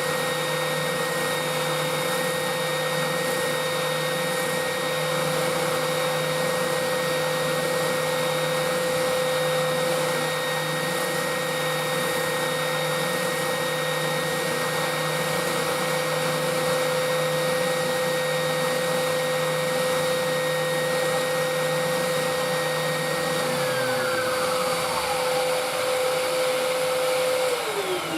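Electric power-tool motors running steadily with a high whine over a rushing noise. One motor is switched off and spins down with a falling pitch about 23 seconds in; the main, strongest whine spins down near the end.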